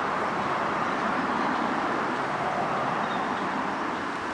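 Steady hum of road traffic, an even noise that does not change.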